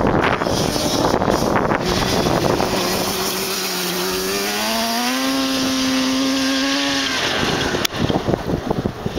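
Yamaha Banshee's 350 cc twin-cylinder two-stroke engine, fitted with FMF Fatty expansion pipes, revving up under acceleration and holding high rpm, then breaking off suddenly about seven seconds in. Wind buffets the microphone at the start and again near the end.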